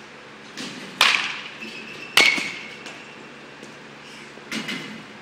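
Two sharp cracks of baseballs struck by bats in the batting cages, about a second apart, the second with a short metallic ring; a few fainter knocks of balls around them.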